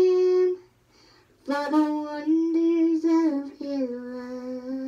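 A young girl singing on her own with no backing music, holding long notes. She stops for about a second near the start, then sings on.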